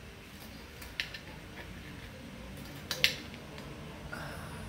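Metal knife and fork clinking and scraping on a plate while a pancake is cut, with a light clink about a second in and a sharper, louder one about three seconds in.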